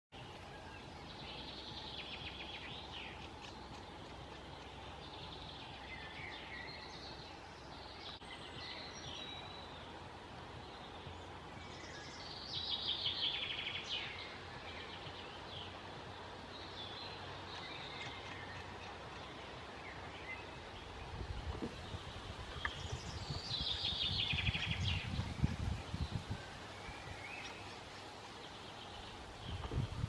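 Woodpecker calls: three bursts of rapid chattering notes, one near the start, one about halfway and one near the end, with fainter chirps between. A low rumbling noise runs through the last third.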